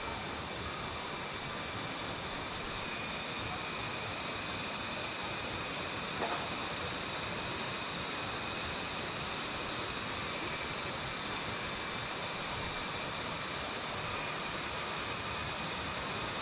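Steady rushing of a jungle stream, with several faint, steady high-pitched tones running over it.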